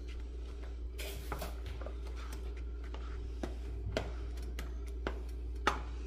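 A spoon stirring thick mole sauce in a stainless steel pan, with a few light clicks and scrapes of the spoon against the pan, over a steady low hum.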